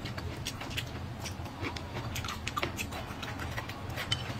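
Close-miked eating sounds: a dense, irregular run of small wet clicks and smacks from chewing, with chopsticks working at food in a ceramic bowl, over a steady low hum.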